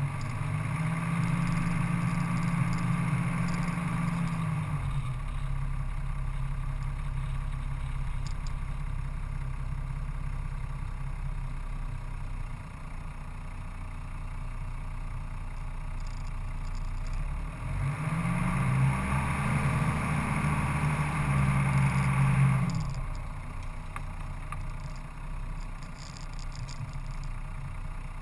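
Off-road vehicle's engine running on a sandy dirt track, revving up and holding higher revs for a few seconds twice, just after the start and again from about eighteen seconds in, and easing back to a lower, steady run in between.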